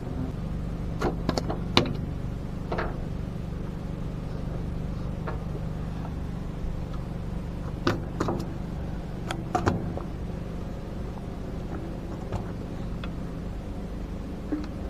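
A steady low engine hum, with scattered sharp clicks and knocks: a cluster in the first few seconds and another around eight to ten seconds in.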